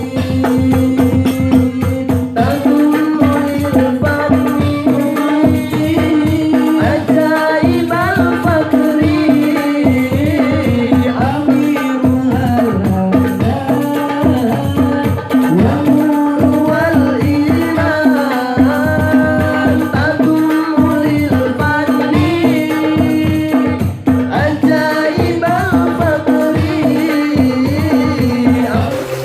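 Hadroh ensemble of hand-struck frame drums playing a fast, steady rhythm while a vocalist sings a sholawat melody over it, the singing line coming in about two seconds in.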